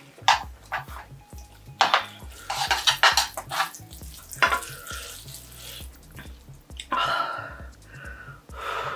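Chopsticks and a spoon stirring and mixing sticky, cheese-coated instant stir-fried noodles with corn in a frying pan, with irregular clicks of the utensils against the pan.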